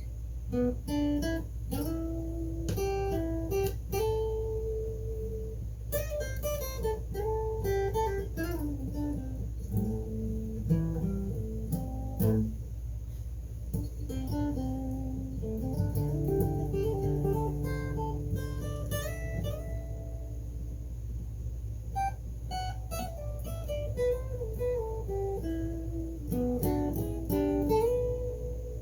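Guitar playing a picked melody of single plucked notes, some held, over a steady low hum.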